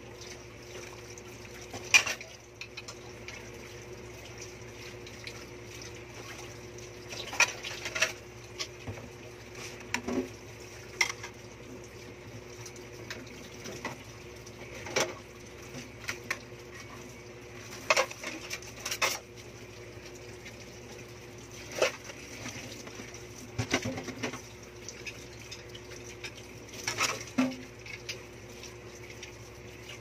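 Dishes being washed by hand at a stainless steel sink: plastic plates and bowls knocking together and set down in a plastic dish rack, with sharp clinks of cutlery every second or few, over a steady low hum.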